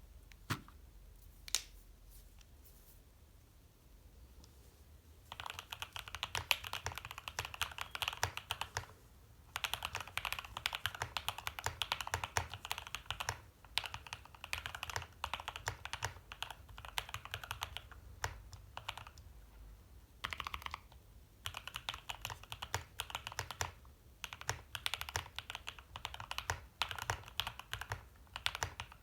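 Typing on a Glorious GMMK Pro mechanical keyboard with lubed, filmed Durock L5/JWK linear switches on its stock aluminium plate: a few single key presses at first, then fast typing from about five seconds in, broken by a few short pauses.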